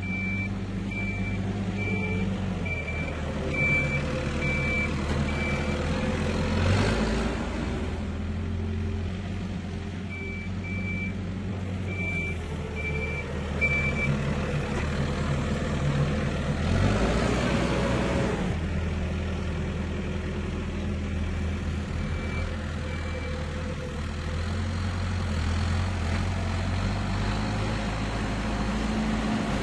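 Tractor engine running steadily at a low idle while working, with a reversing alarm beeping in spells of regular short beeps. Two louder rushes of noise come through, about a quarter of the way in and again just past halfway.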